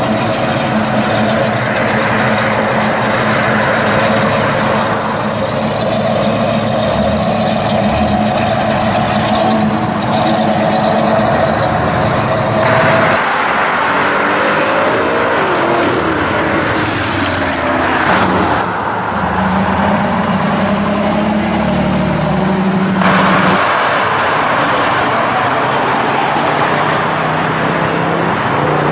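A Pontiac GTO's V8 running steadily at low speed as it pulls away. About 13 seconds in it cuts to road traffic passing by, then to another car's engine running steadily, with a red Chevrolet Chevelle's engine as it drives past near the end.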